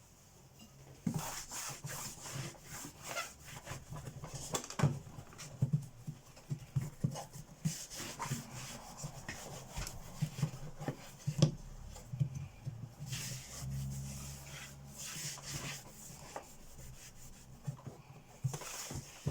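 Scrubbing and rubbing on the plastic face of an Electrolux Z355 vacuum cleaner to lift old boxing-tape residue, in irregular strokes with occasional small knocks, starting about a second in.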